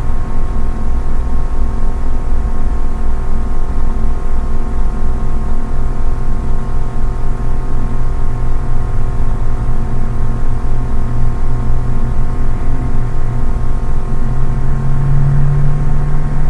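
Steady ambient drone of several held tones over a low rumble that pulses about three times a second, with a lower tone swelling near the end.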